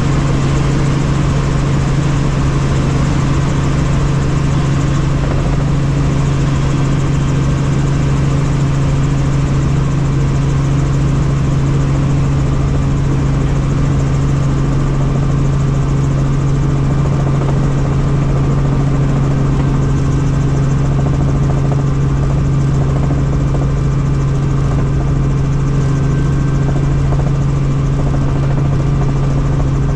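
Helicopter in flight heard from inside the cabin: a steady drone, with a strong low hum over a hiss and no change in pitch or level.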